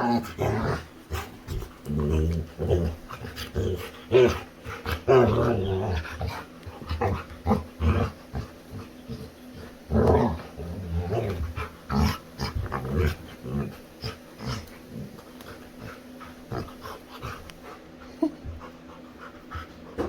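Labrador retriever making a run of playful vocal noises, with panting, dense in the first half and thinning out after about 13 seconds into scattered light knocks and scuffles.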